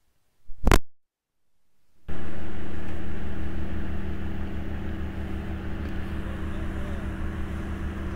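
A single sharp click, then about two seconds in a paramotor's two-stroke engine comes in abruptly and runs steadily, an even low drone that eases slightly in loudness.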